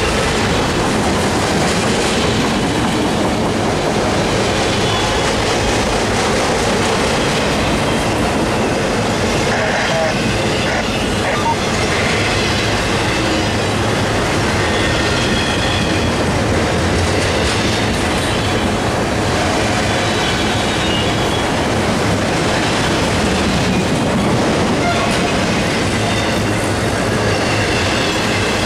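Freight train of autorack cars rolling past at close range: a steady, loud noise of steel wheels running on the rails. Faint high squeals come and go throughout.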